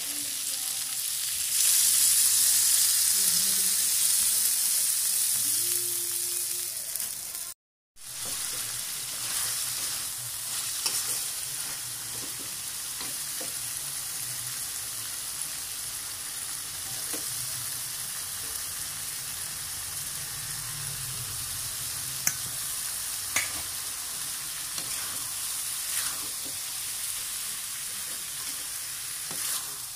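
Melinjo skins and chilies frying in an aluminium wok. A liquid poured in sets off a loud hiss about a second and a half in, which slowly dies down. After a short gap the food sizzles steadily while a metal spatula stirs it, with a few sharp clacks of the spatula against the wok.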